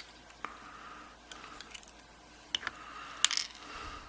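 Small metal clicks and taps as the pins of a gutted Union 5-pin oval lock cylinder are handled with a tool: several separate sharp clicks, the loudest about three seconds in.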